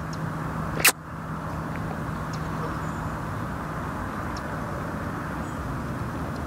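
Steady low rumble of distant road traffic with a constant low hum, and one sharp click about a second in.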